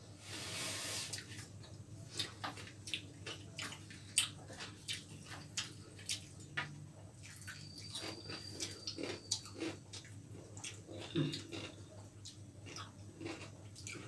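Close eating sounds of two people eating roti and chilli chicken by hand: chewing, wet lip smacks and fingers tearing roti, heard as a scatter of small, irregular wet clicks. A short hiss comes in the first second.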